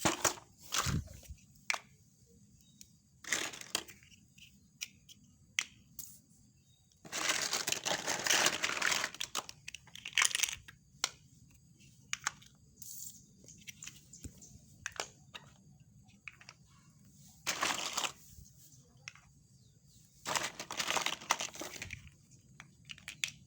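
Plastic toy train track pieces being handled and fitted together: scattered sharp clicks and several longer rustling, crinkling bursts, the longest starting about seven seconds in.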